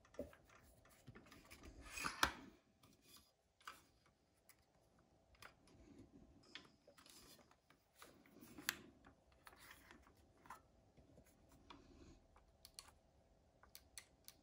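Handling of a Milwaukee M18 Fuel cordless circular saw, not running: scattered clicks, taps and short scrapes of its plastic and metal parts as it is turned over and adjusted. The loudest handling is about two seconds in, with a sharp click about nine seconds in.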